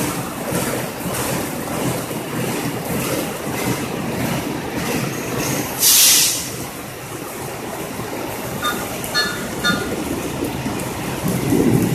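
Diesel-electric locomotive of the CC201 class and its train rolling slowly through the station, wheels clacking in an even rhythm over the rail joints against a steady wash of heavy rain. A loud, sharp hiss comes about halfway through, and a few short high-pitched tones sound near the end.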